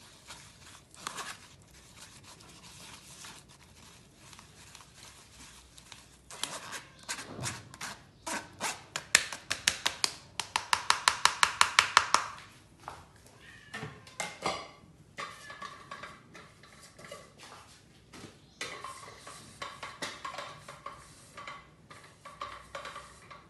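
Metal spoon scraping and tapping against a metal sieve as blended pumpkin is pushed through to strain out the lumps. Scattered taps, a run of quick even taps (about five a second) near the middle, then scraping with a light ringing.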